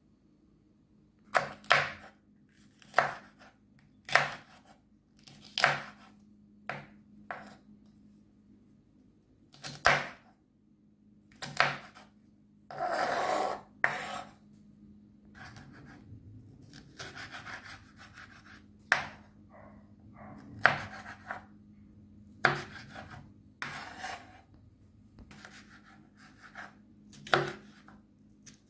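Chef's knife chopping bell peppers on a wooden cutting board: irregular sharp knocks of the blade striking the board, a second or two apart, coming closer together in the second half. About thirteen seconds in there is one longer, steadier noise lasting about a second.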